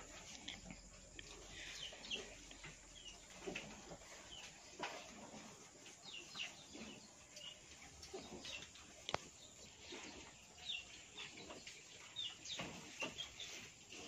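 Chicks peeping: many short, high, falling chirps scattered throughout. A single sharp click about nine seconds in.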